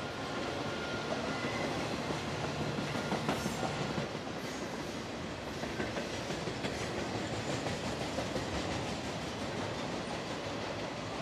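A train rolling past, a steady rumble of railcars with wheels clicking over the rails, a little louder in the first few seconds.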